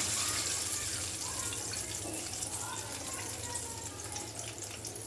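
Hot oil sizzling in a deep-frying pan, the sizzle slowly dying down.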